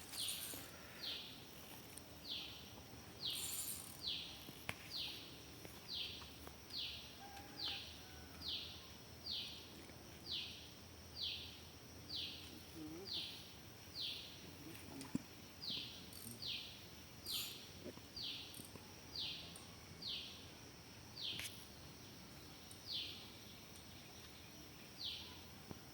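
A bird calling over and over, a short falling note about once a second, over faint outdoor background noise.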